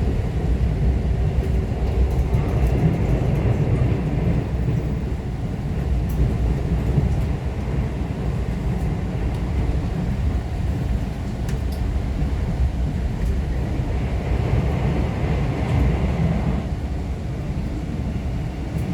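Korean Mugunghwa passenger train heard from inside a carriage while under way: a steady low rumble of wheels on rails, with a few faint clicks.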